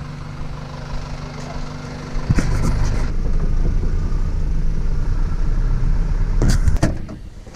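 A vehicle engine running with a steady low hum; about two seconds in it gives way to a louder car engine and road rumble heard from inside the cabin, with a few sharp knocks shortly after and again about a second before the end.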